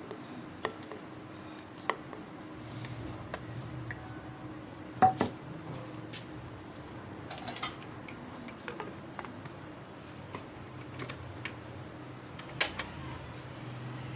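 Mango pieces being tipped from a plate into a glass blender jar: scattered light clinks and knocks of plate and pieces against the jar, with two louder knocks about five seconds and twelve and a half seconds in, over a faint steady hum.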